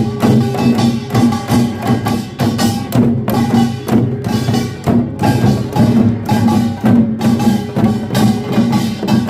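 Korean pungmul farmers' band playing: small gongs and drums struck together in a fast, steady rhythm over sustained ringing metal tones.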